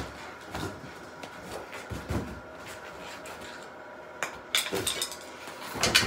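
Irregular knocks and clatters of hands and a homemade tire lever working a bicycle tire off its rim, with a quick cluster of clicks about four and a half seconds in.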